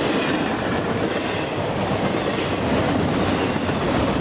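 Freight train rolling past close by, a steady loud rumble and rush of wheels on rail.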